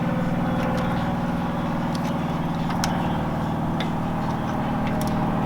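A steady low mechanical hum, like a motor running, with scattered light clicks and taps.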